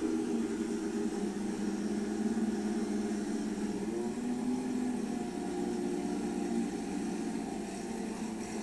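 Volkswagen Beetle drag car's engine idling steadily at the start line, its pitch wavering slightly up and down as the car creeps forward to stage.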